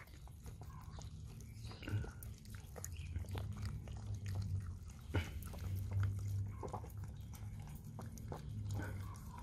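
Two small dogs licking and lapping peanut butter off a metal spoon up close, a busy run of wet lip-smacks and tongue clicks. A low hum swells and fades underneath at times.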